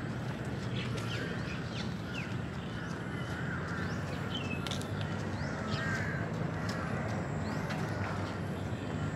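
A mix of park birds calling, with many short chirps and quick up-and-down whistled notes overlapping. Under them runs a steady low rumble of distant city traffic.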